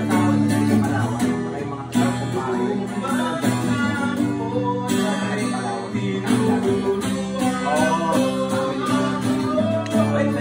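Acoustic guitar strummed in a steady rhythm, playing chords in an instrumental passage between sung lines.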